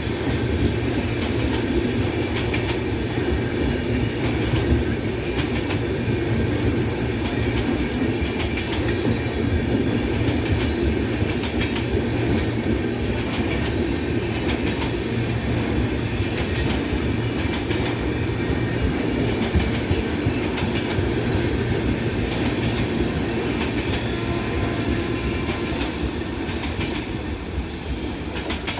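Indian Railways electric passenger train running at speed: a steady rumble of coach wheels on the rails, with rapid sharp clicks as they cross rail joints, easing slightly near the end.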